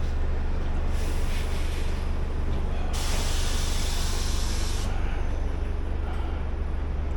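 A steady low rumble, with a loud hiss that starts suddenly about three seconds in and cuts off sharply about two seconds later.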